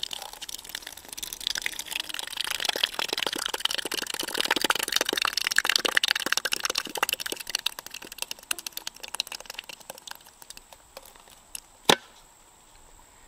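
Thick tomato puree pouring in a thin stream from a bullet-holed can and spattering onto a plastic barrel and the ground: a crackly patter of many small splats that fades out after about ten seconds. A single sharp click follows near the end.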